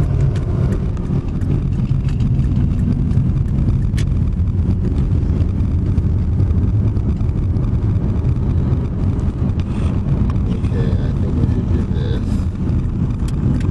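Steady low rumble of a car's engine and tyres heard from inside the cabin while driving along a highway.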